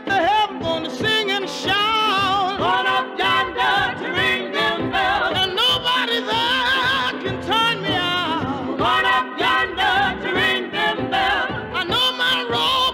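A women's gospel vocal group singing with wide vibrato and sliding, wordless runs, played from an old Savoy 78 rpm record that sounds narrow and dull, with little above the middle range.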